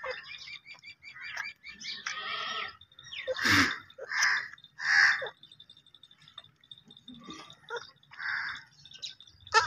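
Scattered short snuffling and sucking sounds from a goat kid held to a water buffalo's teat, with faint bird chirps behind. A goat kid starts to bleat at the very end.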